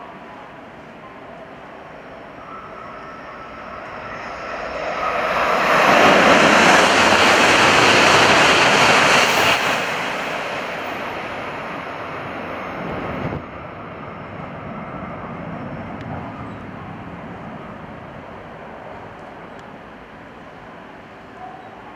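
700 Series Shinkansen high-speed train passing through a station at speed without stopping: a rushing noise of wind and wheels swells over a couple of seconds, stays loud for about four seconds as the train goes by, then dies away. It drops off sharply just past the middle, leaving a lower rumble that fades out.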